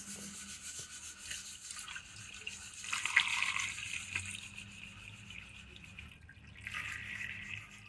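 Green water poured from a plastic jug into the open water jacket of a Bharat Benz 1214 engine block with its head removed, a steady trickle and splash that swells about three seconds in and again near the end. The block is being filled to test for a leak into the number one cylinder.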